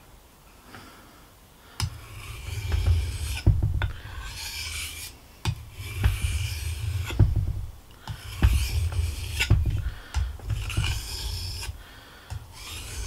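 Steel knife blade being pushed across the 1000-grit face of a white corundum whetstone: a scraping grind, front strokes only, repeated about eight times from about two seconds in.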